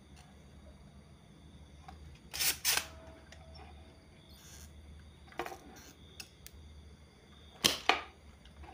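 Spring-loaded desoldering pump snapping as it sucks solder off a circuit-board joint: sharp clicks, a pair about two and a half seconds in, a single one around five and a half seconds, and the loudest pair near the end, over a low steady hum.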